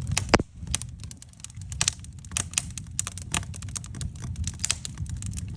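Wood fire in a fireplace crackling, with irregular sharp pops, the loudest about a third of a second in, over a low steady rumble.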